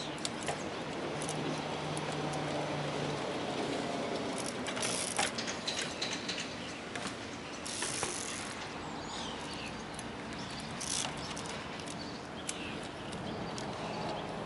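Trials bike's freewheel ratcheting in short bursts of clicks as the rider makes small pedal strokes to balance, with occasional sharper knocks of the tyres on the rocks and a brief scrape about eight seconds in.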